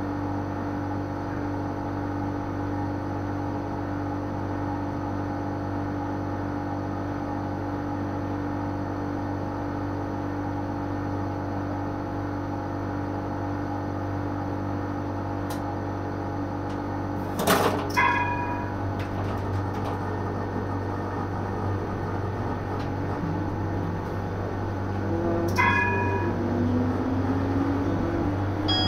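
Tram standing with a steady electrical hum. About two-thirds through, a sharp clack is followed by a short bell-like ding, and a second ding comes near the end. Over the last few seconds a motor whine rises in pitch as the tram pulls away.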